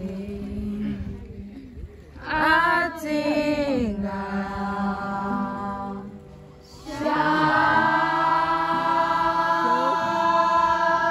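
Group of voices singing long held notes together over a steady low note, breaking off briefly about two seconds in and again past the middle.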